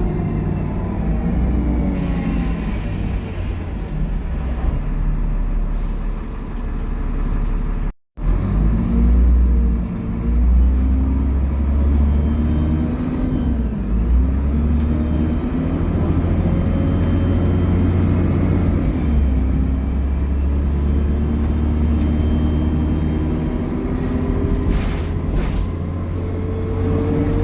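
Dennis Trident double-decker bus engine and drivetrain under way, its pitch rising and falling as it pulls through the gears, climbing again near the end. A brief dropout about 8 seconds in.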